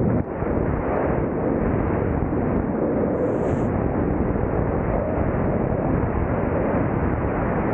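Wind rushing and buffeting over a 360 camera's microphone during wingsuit flight: a loud, steady rush.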